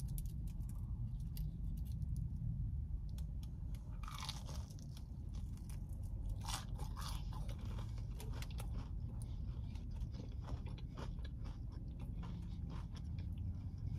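A person chewing a crispy fried chicken tender close to the microphone, with a steady scatter of small crunches, over a steady low hum.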